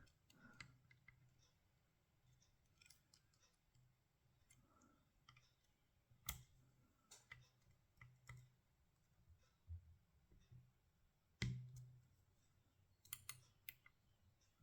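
Faint, scattered metallic clicks and ticks of a pick poking the pins of a tubular lock one at a time, with two sharper clicks about six and eleven and a half seconds in.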